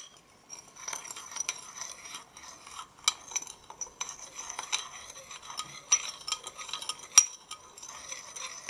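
Metal spoon stirring sugar and warm water in a glazed ceramic bowl, clinking and scraping against the sides at irregular intervals, with a few sharper clinks. The sugar is not yet dissolved.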